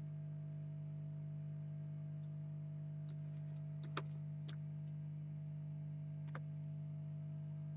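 Steady low electrical hum, with a handful of light clicks and ticks about three to four and a half seconds in and once more near six seconds.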